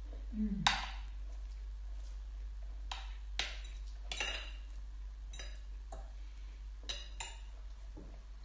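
Metal spoon and fork clinking and scraping against a glass serving bowl while eating: a series of about eight sharp, irregularly spaced clinks, each with a brief ring.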